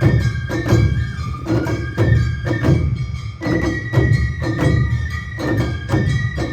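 Awa Odori festival music: a bamboo flute holding and sliding between high notes over a brisk, steady beat of taiko drums and a small hand-struck gong.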